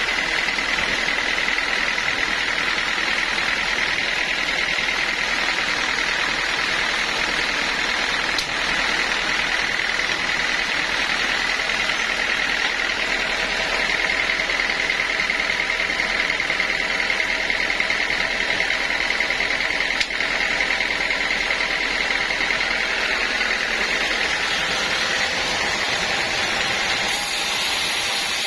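Sawmill running steadily: continuous machine noise with a steady high whine through it.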